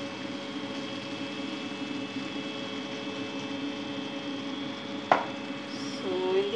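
Steady mechanical hum with a few held tones, like a running fan or appliance, broken by a single sharp knock about five seconds in.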